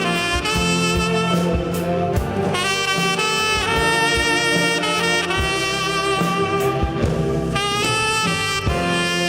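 Tenor saxophone playing a slow melody of long held notes, with a saxophone ensemble accompanying and a steady beat underneath.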